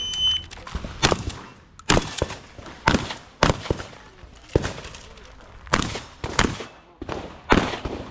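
Shotgun fired in a string of about eight shots, spaced roughly a second apart, with fainter knocks between the shots.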